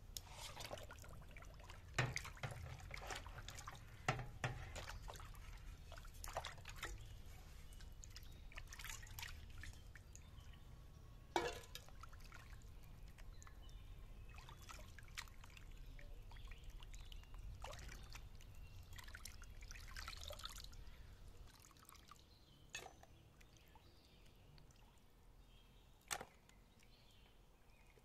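Water sloshing and dribbling in a wide metal basin as raw quail are washed by hand, with a few sharp knocks; the splashing dies down about three quarters of the way through.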